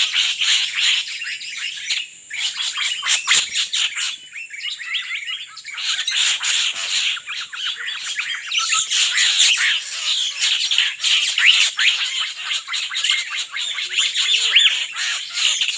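Dense, continuous bird chatter: many rapid chirps, squawks and quick up-and-down whistles overlapping, with a brief lull a little after two seconds in.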